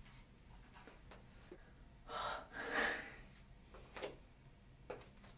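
A woman's breath, two short breathy gasps about half a second apart, then a few faint taps.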